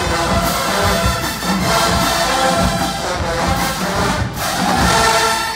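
College marching band playing, brass led by sousaphones over a steady beat of drum hits.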